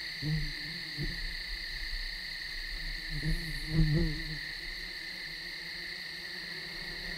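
Night-time nature ambience: a steady high-pitched insect chorus with a few short low calls, the loudest about four seconds in.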